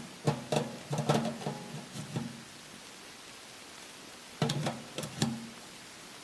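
Sheet-metal parts of a camping tent stove clanking and knocking together as they are handled, each hit ringing briefly; a quick run of clanks at the start and a second, shorter run about four and a half seconds in.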